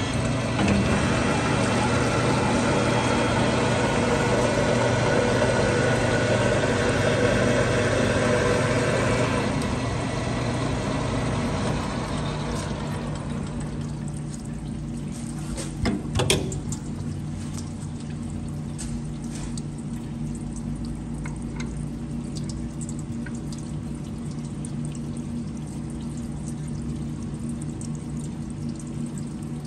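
Lathe single-point cutting an Acme thread under flood coolant, with the cut and the coolant pouring onto the screw. About ten seconds in the cutting noise fades over a few seconds, leaving a steady machine hum with running coolant, broken by two sharp knocks a little later.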